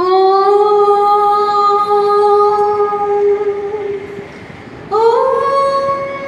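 A woman's voice singing two long, steady held notes, the first for about four seconds and the second, higher one starting with a small upward slide near the end.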